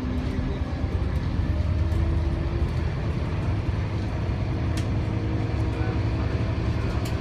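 Scania K280UB bus under way, heard from inside the passenger cabin: its 9.3-litre five-cylinder Scania DC9 diesel and ZF Ecomat six-speed automatic gearbox give a steady low drone with a faint whining tone above it. Two brief rattles come through, about five seconds in and near the end.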